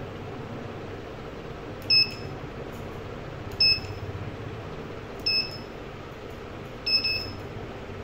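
PTS-3103C PTZ keyboard controller giving short, high confirmation beeps as its keys are pressed to key in the 24+PGM setting combination. There are four beeps about a second and a half apart, the last one doubled, over a steady background hum.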